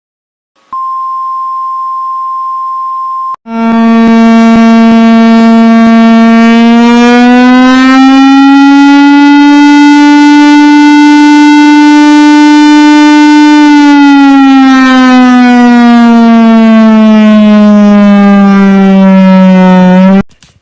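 Emergency alert alarm: a steady high tone for about three seconds, then a loud, buzzy siren tone that slowly rises in pitch, holds, and slowly falls again before cutting off suddenly near the end.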